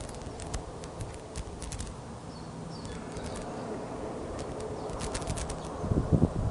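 Wind rumbling on an outdoor microphone, gusting up about six seconds in, with scattered sharp ticks and a few faint small-bird chirps in the distance.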